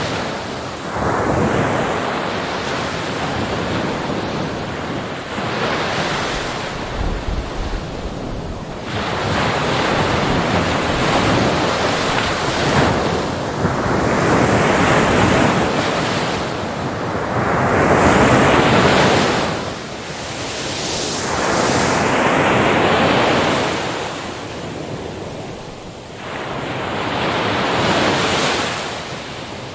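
Ocean waves breaking on a beach, the surf swelling and washing back every few seconds, with some wind on the microphone.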